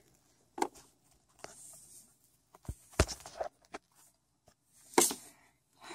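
Handling noise of plastic pet toy figurines being moved by hand: scattered light taps and clicks, with two low thumps about three seconds in and a brief rustle near the end.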